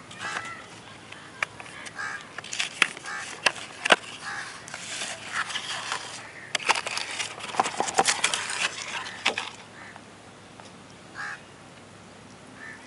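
Cardboard phone box being handled and opened: sharp clicks and taps of the card, then rustling and scraping from about four to nine seconds in as the inner box slides out of its sleeve. A few short bird calls sound in the background.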